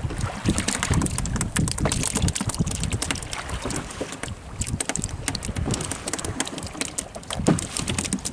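Wind buffeting the microphone over waves slapping and splashing against a small boat's hull, with many sharp crackles throughout.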